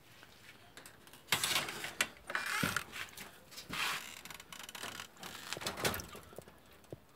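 A wooden rabbit hutch being opened and the hay inside handled: several bursts of rustling and scraping, with sharp clicks and knocks.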